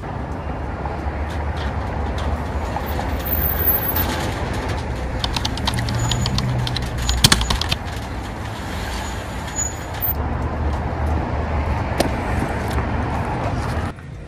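Steady road traffic, with metallic rattling and a sharp clank about seven seconds in as a folding scissor security gate is forced open. The street noise drops away abruptly near the end.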